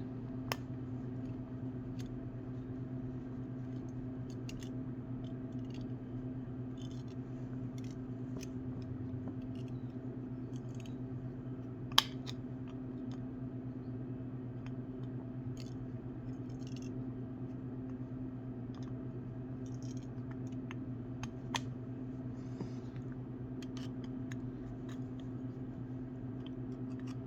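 Scattered small metallic clicks and scratches, with one sharper click about twelve seconds in, as a 1991 Zippo windproof lighter is handled and its screw loosened, over a steady low hum.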